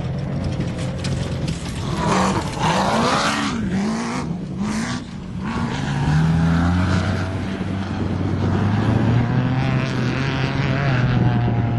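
Off-road race vehicle engine at high revs: the pitch swings rapidly up and down about two seconds in, along with a loud rush of noise, then settles into a steadier engine note that climbs slowly through the second half.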